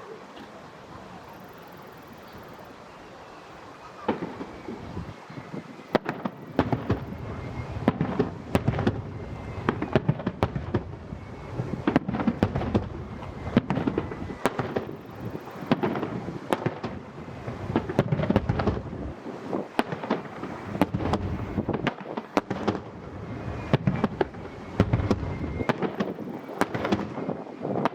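A fireworks display: after a few seconds of steady hiss, shells begin bursting about four seconds in and keep going in rapid succession, a dense run of sharp bangs and crackling over a low rumble.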